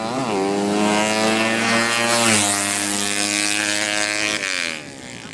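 Engine of a 200 cc drag-race motorcycle at full throttle on a run. Its note rises briefly, then slides down in pitch with a sharp drop about two seconds in, and fades away near the end.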